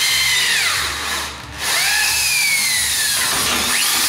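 Corded electric hand drill boring into a small metal part clamped in a bench vise. Its whine falls in pitch as the bit bites. It eases off briefly about a second and a half in, then runs on.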